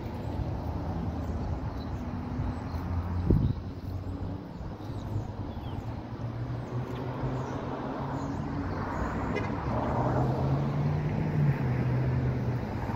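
Steady hum of road traffic, with engines running at a low tone. There is one sharp knock about three seconds in, and the rumble grows louder in the second half.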